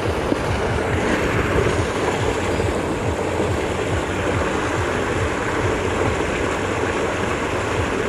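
Steady rush of river water pouring through a small concrete sluice, with wind buffeting the microphone.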